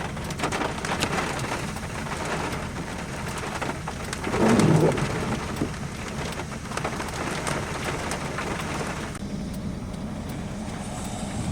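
Heavy rain pattering on a surface, with a brief low rumble about four and a half seconds in; the rain eases off about nine seconds in.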